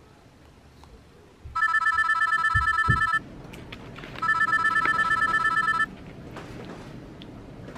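Mobile phone ringing with a trilling telephone-style ringtone, two rings each about a second and a half long, about a second apart. A couple of soft low thumps come during the first ring.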